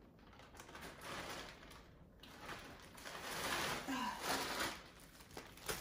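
Faint rustling and handling of plastic grocery bags, in uneven bursts, with a short breath or vocal sound about four seconds in.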